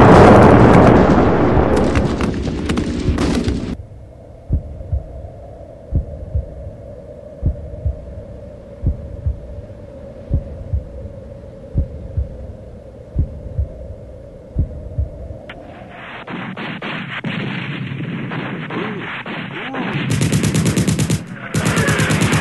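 Battle sound effects: loud gunfire and blasts for the first few seconds, then a slow, thudding heartbeat under a steady ringing tone, then rapid machine-gun fire that starts up again and grows louder near the end.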